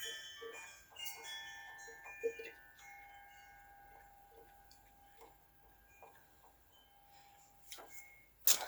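Several bell-like metallic tones ringing at different pitches and slowly fading, like chimes, with faint light ticks under them and a sharp clatter near the end.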